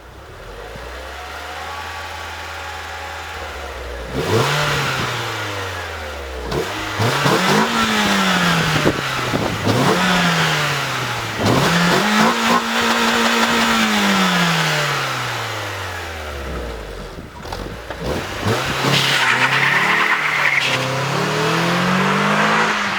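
Renault Twingo RS's 1.6-litre naturally aspirated four-cylinder engine idling for the first few seconds, then revved hard several times: sharp rises in pitch that fall back, one rev held high for a couple of seconds. Near the end it runs through a quick series of short rising revs.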